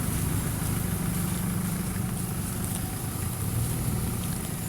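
Steady low mechanical hum with no change in pitch or level.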